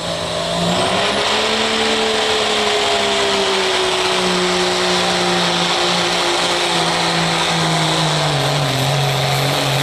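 Dodge Ram's Cummins turbo-diesel engine run at full throttle while the pickup pulls a weight-transfer sled, a loud steady drone under heavy load. Its pitch sags gradually as the sled grows harder to pull, most clearly near the end.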